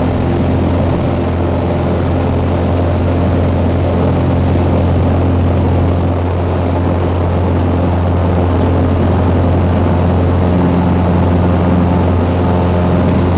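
Cessna 182's piston engine and propeller running steadily at high power during the takeoff roll on a grass strip, a loud even drone.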